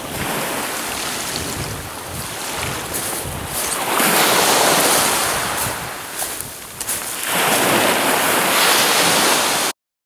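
Small waves breaking and washing up a shingle beach, swelling loudest twice, with wind on the microphone. The sound cuts off suddenly near the end.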